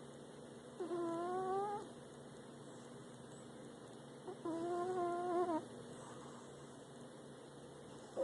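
A sleeping cat snoring: two drawn-out, pitched, whistly snores of about a second each, about three and a half seconds apart, with its breathing.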